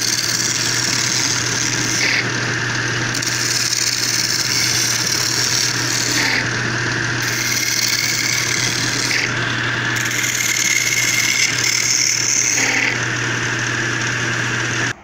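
Wood lathe running with a steady hum while a hand chisel scrapes along the spinning wooden mortar body, smoothing it in passes that change every couple of seconds. The lathe cuts off suddenly at the very end.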